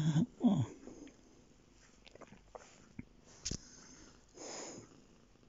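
A cat mouthing and nibbling a person's hand: faint soft clicks, one sharper click about three and a half seconds in, and a short breathy hiss about a second later.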